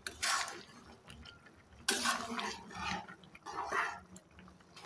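A cooking utensil stirring a pan of watery chicken and bottle gourd curry, clattering and scraping against the metal pan in a few short bursts, the loudest about two seconds in.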